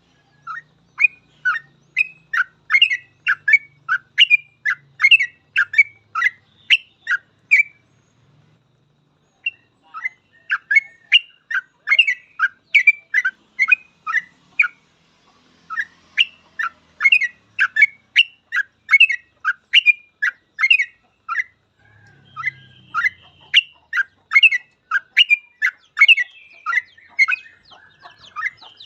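Yellow-vented bulbul (trucukan) singing in rapid 'ropel' style: long runs of quick, sharp chirping notes at about two a second. The song breaks off for about two seconds some eight seconds in, and briefly again about two-thirds of the way through.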